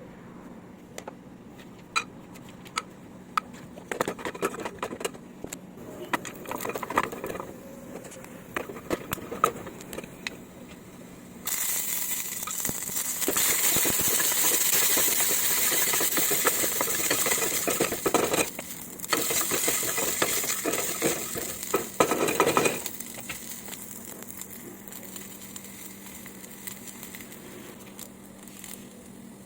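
Kitchen utensils clicking and knocking against a pan, then loud sizzling of poha mixture frying in hot oil, starting about eleven seconds in and stopping about twelve seconds later with a brief break partway through.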